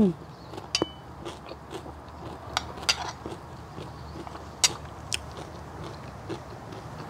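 A person eating stir-fried bamboo shoots: chewing, with a few sharp, irregular clicks of utensils, over a low steady hum.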